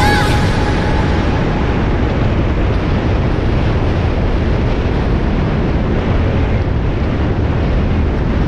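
Steady wind rush buffeting a helmet-mounted microphone over a motorcycle's engine and road noise while riding at cruising speed.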